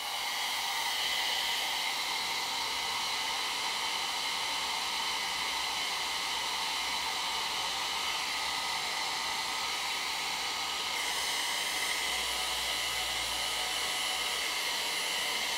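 PYT hair dryer running steadily on its low setting (setting one): an even rush of air with a steady whine over it.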